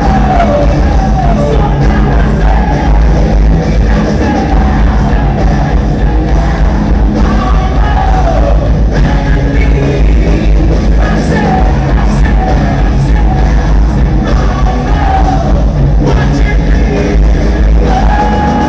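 Live rock band playing loud, with a sung vocal line over heavy bass and guitars, heard from among the audience.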